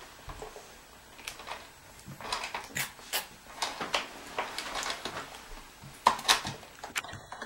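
Plastic clicks and clatter from a Play-Doh popcorn maker toy as its yellow top handle is worked by hand, with a sharper knock about six seconds in.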